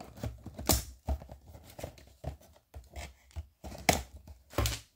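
Cardboard action-figure box being handled and turned in the hands: irregular rustling and scraping of the packaging, with a few louder scuffs, the strongest near the end.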